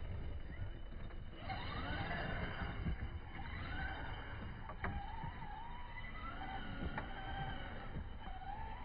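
ARRMA Big Rock 6S RC monster truck's brushless electric motor whining in repeated rising and falling bursts as the throttle is blipped while it drifts, over a low rumble, with a couple of sharp clicks in the second half.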